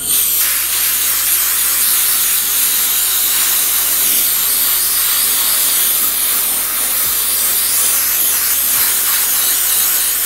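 Handheld sandblasting gun blasting an intake manifold: a loud, steady hiss of compressed air and abrasive that starts abruptly.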